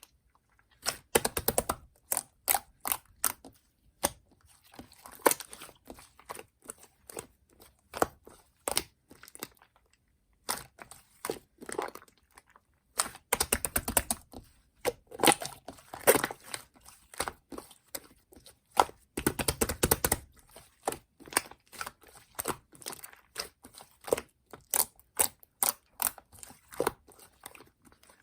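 Crackling, crunching handling noise in irregular clusters of sharp clicks, with a few denser bursts and a short pause about ten seconds in.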